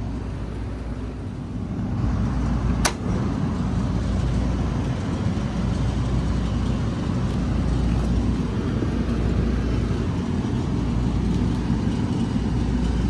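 Steady low mechanical hum of running rooftop HVAC equipment, growing a little louder about two seconds in, with one sharp click about three seconds in.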